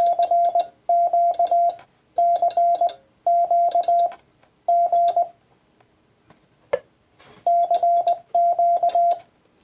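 Morse code side tone from a ham transceiver, a single steady beep keyed by hand on a Vibroplex key into dits and dahs, sending a repeated CQ call. Faint clicks of the key come along with the elements, and a single sharp click falls in a pause near the middle.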